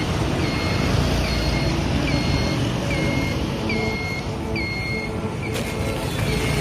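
An electronic vehicle beeper sounding a short high beep about once every 0.8 seconds, over motorbike engine and street traffic noise. A single sharp click about five and a half seconds in.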